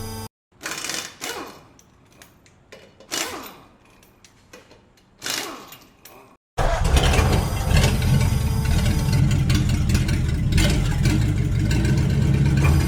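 Car engine sound effect. A few short whooshes sweep by, then about six and a half seconds in an engine suddenly starts and runs with a steady deep rumble.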